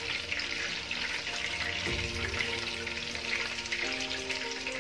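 Batter-coated chicken drumsticks deep-frying in hot oil in a pan: a steady, dense crackling sizzle, during the first fry of a double fry. Soft background music with held notes plays under it, changing chord about two seconds in and again near the end.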